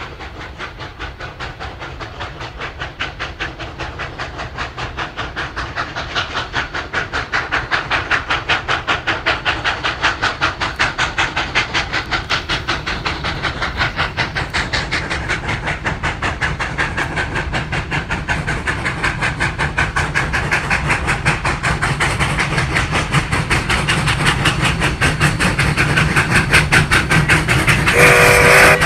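Steam locomotive, Sierra Railway No. 3, working toward the listener with a fast, even exhaust beat that grows steadily louder. A steam whistle starts to blow about a second before the end.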